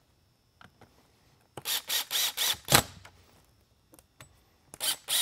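Ryobi cordless drill-driver driving screws into the light bar's base. It runs in short pulses, about four a second: one run of about five pulses, a pause, then a second run near the end. A few faint clicks come before the first run.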